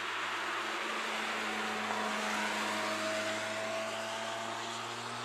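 Lotus Elise driving past on a wet track: a steady engine note under the hiss of tyres on wet tarmac, a little louder about two to three seconds in as it goes by.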